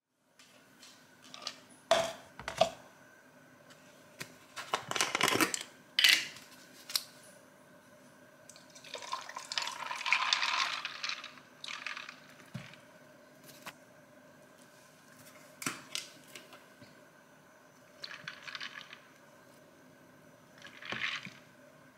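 Liquid poured from a plastic bottle into a plastic cup in several pours, the longest about ten seconds in, with a few sharp clicks and knocks of the bottle and cup being handled.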